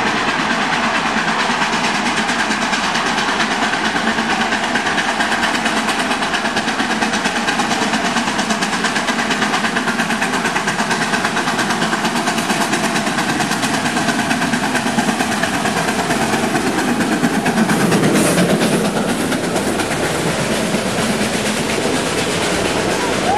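1941 ALCo 2-8-2 Mikado steam locomotive no. 155 working a train on narrow-gauge track: a loud, steady running noise that swells about eighteen seconds in as the engine passes close, followed by its passenger coaches rolling by.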